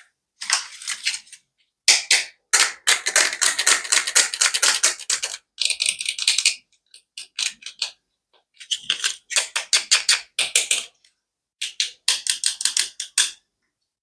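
A toy being clicked in quick runs of sharp clicks, in several bursts with short silent pauses between them.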